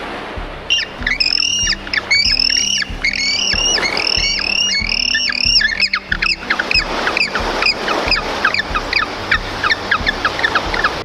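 A bird giving a long series of short, sharp calls, about three a second, the calls getting shorter and thinner in the second half, over background music with a steady beat.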